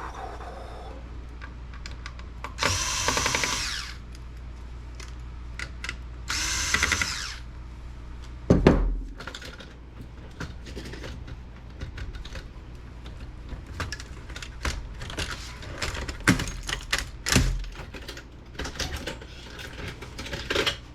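Power screwdriver whirring in two short runs, backing screws out of a laptop's case, then sharp clicks and taps of small plastic and metal parts being handled, with one heavy thump.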